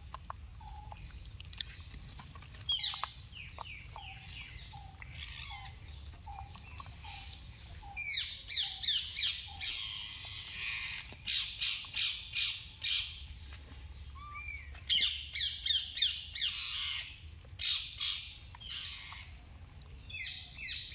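High-pitched animal calls: a few scattered chirps at first, then, from about 8 seconds in, rapid runs of short, falling squeals in clusters, the loudest around 15 to 17 seconds. A faint steady low rumble runs underneath.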